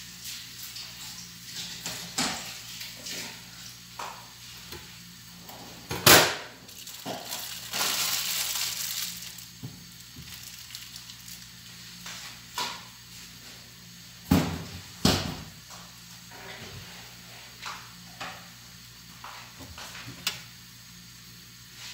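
Kitchen handling noises beside a pot of instant noodles on a gas burner: a few sharp knocks and clatters, the loudest about six seconds in, and a crinkling rustle lasting about two seconds as plastic noodle packets are handled. A faint steady hum runs underneath.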